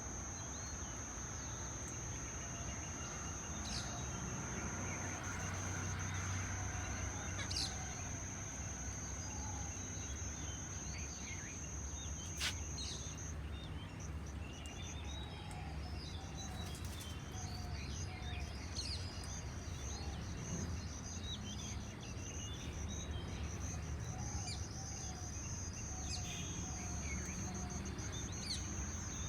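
Birds chirping and calling, many short calls throughout, over a steady high-pitched whine that stops for several seconds about halfway through and then returns, and a low background rumble. A few sharp clicks stand out.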